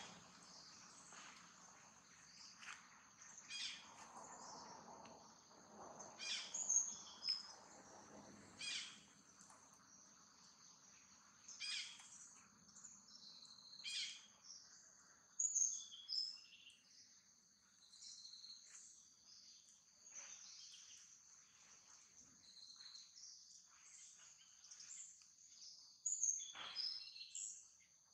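Faint chirping and calling of birds over a steady high-pitched insect hum, with short sharp calls every few seconds.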